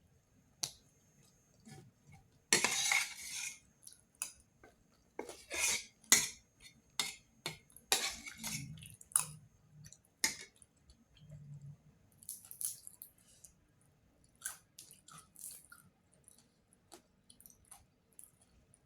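A cat eating from a food bowl: irregular clinks, taps and short scrapes of the dish. They come thickest and loudest in the first half and thin out toward the end.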